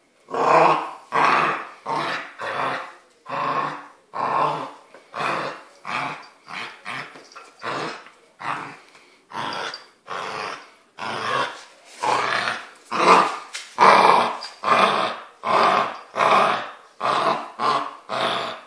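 Puppy growling in play over a knotted rope tug toy: a long run of short growls, about one and a half a second, with a couple of brief pauses.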